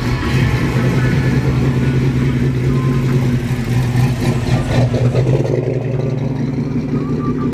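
A car engine running steadily at low revs.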